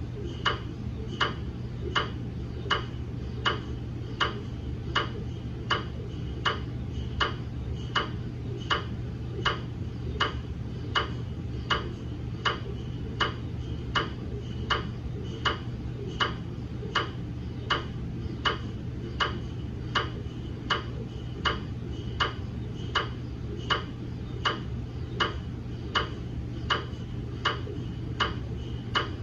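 GE MRI scanner's gradient coils knocking in an even, unbroken rhythm, somewhat more than one sharp knock a second, during a daily QA scan of a phantom, over a steady low hum.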